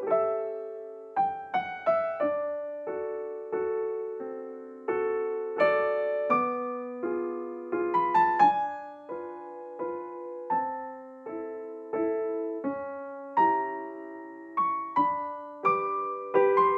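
Background music: a slow, gentle piano melody of single struck notes that ring and fade.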